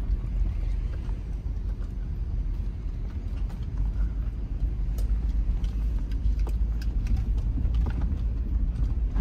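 Car driving slowly over a dirt track, heard from inside the cabin: a steady low rumble of engine and tyres, with scattered light clicks and rattles.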